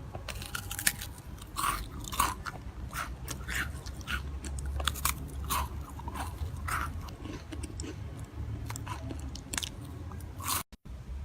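Close-miked chewing and biting of crunchy food: irregular crisp crunches, several a second, over a low steady rumble, briefly cut off near the end.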